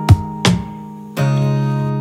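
Background music of a strummed acoustic guitar: three chords, the last ringing on.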